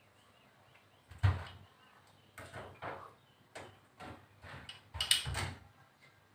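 A series of about nine sharp knocks and rattles at irregular spacing, the loudest about a second in and another cluster near the end.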